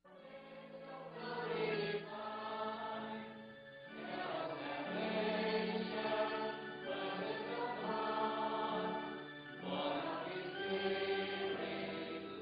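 A congregation of mixed voices singing a hymn together, in several sung phrases with short breaks between them.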